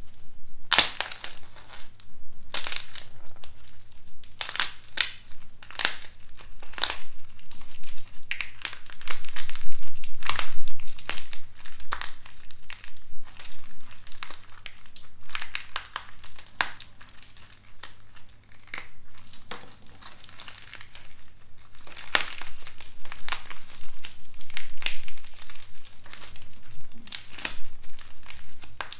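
Dried clay figure being squeezed and broken apart by hand: a dense run of irregular crackles and crunches as the hard shell cracks and crumbles, loudest about a third of the way in and again past two thirds.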